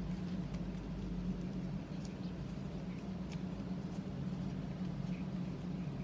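Origami paper being folded and creased by hand: faint scattered crinkles and soft clicks over a steady low hum.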